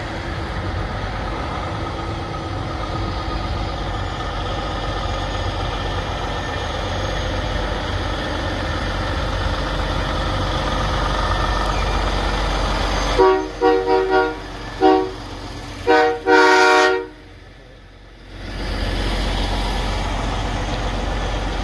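Peterbilt semi tractor's 565-horsepower Cummins diesel running steadily as the truck rolls slowly forward. About 13 seconds in, its air-powered train horn sounds a series of short blasts and then one longer blast, each a chord of several tones.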